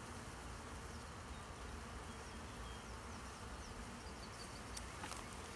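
Steady buzzing hum of a package of honey bees clustered in a screened shipping box. A few faint clicks near the end.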